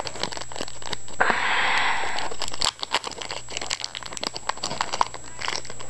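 Foil trading-card pack wrapper crinkling in the hands, with one drawn-out rip of the foil a little over a second in.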